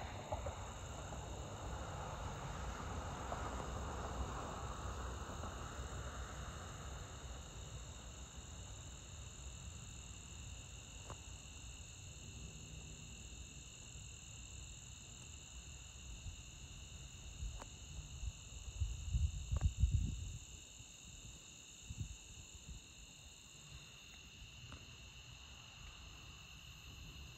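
Steady chorus of crickets and other insects, a high-pitched drone sounding at several pitches at once. A soft rushing in the first few seconds fades away, and a brief low rumble swells about two-thirds of the way in.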